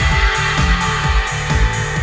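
Music with a steady, driving beat, about two beats a second.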